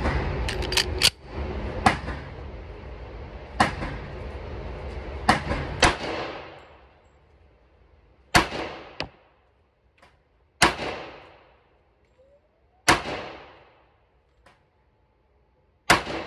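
FN FNX-45 Tactical .45 ACP pistol firing at an indoor range, each shot a sharp crack with a reverberating tail. Several shots come in quick succession over a steady background rush in the first six seconds, then four single shots spaced two to three seconds apart.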